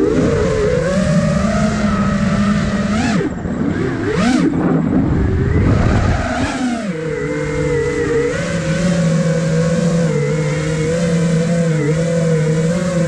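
Motors and propellers of an iFlight Nazgul Evoque F5 five-inch FPV quadcopter whining. For the first several seconds the pitch swoops up and down with throttle punches, with a rush of air over the microphone. About seven seconds in it settles into a steady whine as the drone slows near the pilot.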